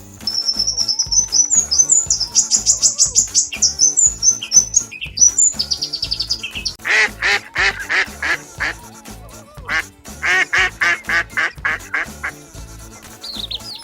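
A bird chirps in rapid high trills for the first five seconds or so. Then come two runs of quick duck-like quacks, over a steady backing music beat.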